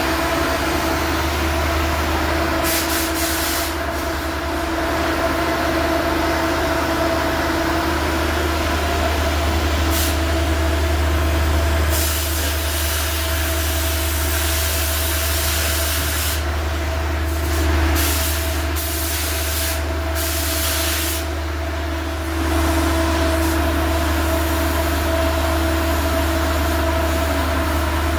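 Large main ventilation fan running with a steady low drone and a constant hum. Stretches of hissing rise over it several times, longest between about 12 and 21 seconds in.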